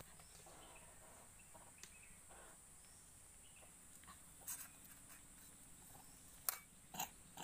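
Quiet outdoor ambience with a steady faint high hiss, broken by a few sharp clicks and taps, the loudest two about half a second apart near the end.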